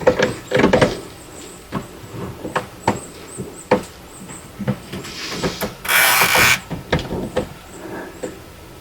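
Hand work on hose fittings with zip ties: scattered clicks and knocks, and one short, loud rasp about six seconds in.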